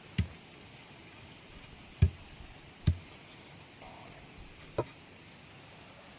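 Four sharp, short knocks, the last one lighter.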